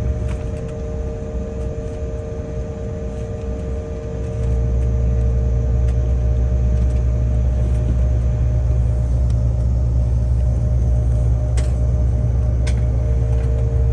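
Jet airliner cabin noise while taxiing after landing: a steady low engine rumble with a constant hum of a few held tones. The rumble drops off for a few seconds, then rises again about four seconds in, with a couple of faint clicks near the end.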